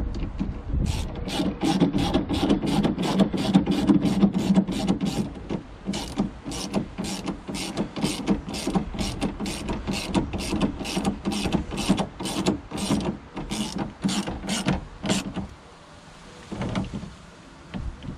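Small hand ratchet clicking in steady runs, about three clicks a second, as it drives self-tapping T20 Torx screws home, the screws cutting their own thread as they tighten. There is a rougher grinding under the clicks in the first few seconds, and the clicking stops about fifteen seconds in.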